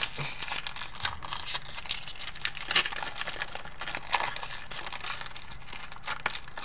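Crinkling and tearing of the wrappers of 2008 Upper Deck Draft Edition football card packs as they are handled and a pack is ripped open: a continuous crackle full of small sharp clicks.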